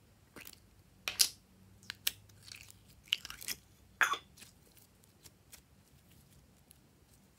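Purple slime being handled out of its square plastic cube container: a string of sharp crunchy crackles and pops, loudest between about one and four seconds in, then only a few small ticks.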